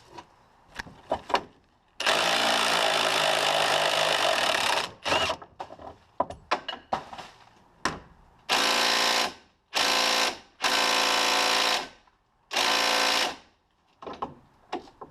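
A handheld power tool run in five bursts, the first about three seconds long and the rest a second or so each, with short metallic clanks and knocks of tools and parts between them.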